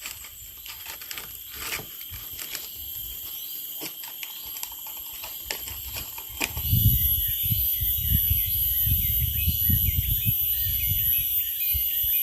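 Forest insects buzzing steadily at several high pitches, with scattered small clicks and taps in the first half. About six and a half seconds in, a low irregular rumble starts and the high insect buzz grows louder.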